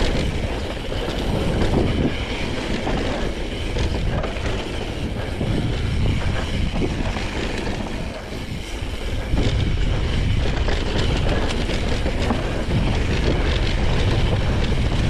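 Mountain bike ridden fast down a dirt singletrack trail: wind rushing over the microphone, with the steady rattle and clatter of the bike over rough ground.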